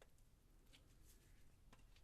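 Near silence between peels of an orange, with a few faint small clicks from the fruit and peel being handled.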